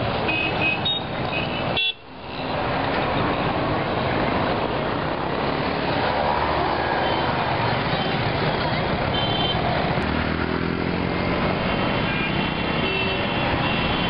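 Busy street traffic with motorcycles and auto-rickshaws running, and short vehicle horn toots several times: near the start, about nine seconds in, and near the end.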